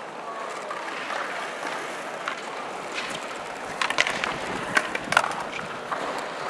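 Skateboard on a concrete skate-plaza ledge: wheels rolling, the board sliding along the ledge, then several sharp clacks of the board from about four seconds in.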